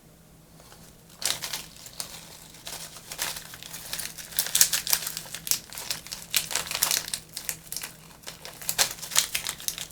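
Small plastic connectors and test wires being handled, making irregular rustling and clicking that starts about a second in.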